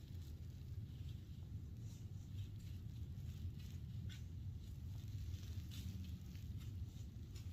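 Faint, irregular crunches and rustles of dry leaf litter under a white-tailed deer walking, a few a second, over a steady low rumble.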